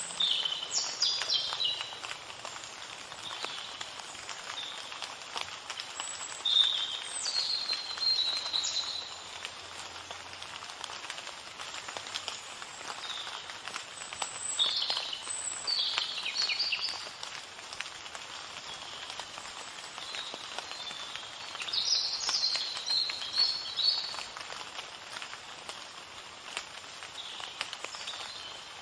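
Songbirds singing in short, high chirping phrases that come every several seconds, over a steady background hiss.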